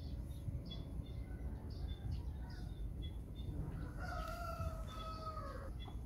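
A rooster crows once about four seconds in: a single long call that drops in pitch at its end. Short high chirps from small birds repeat throughout, over a steady low rumble.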